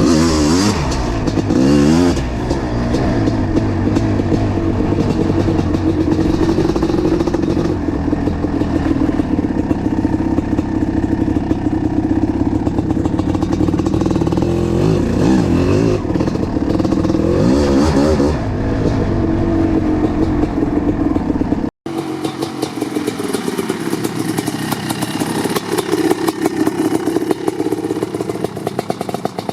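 1988 Kawasaki KX500's single-cylinder two-stroke engine, fitted with an FMF Fatty pipe, running while it warms up after a cold start. The throttle is blipped near the start and again about two-thirds through, with steady running between; after an abrupt cut the engine sounds thinner and idles lower.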